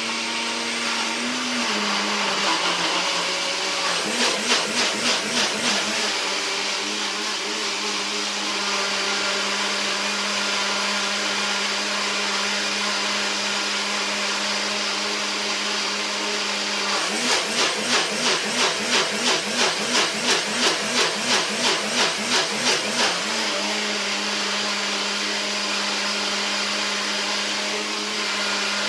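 Electric countertop blender running steadily as it blends a smoothie of banana, oats, yogurt, blueberries, spinach and water. Its pitch drops slightly a second or two in. Twice the motor note wavers in a regular pulse about twice a second, for a few seconds each time.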